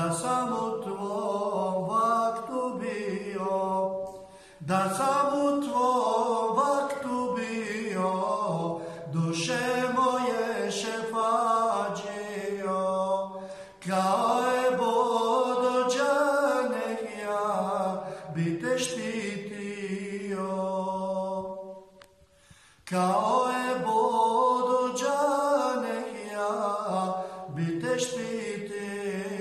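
A man singing an unaccompanied Bosnian ilahija, an Islamic devotional song praising the Prophet Muhammad, in long held notes that waver and bend in pitch. He breaks off twice for breath, a few seconds in and again about two-thirds of the way through.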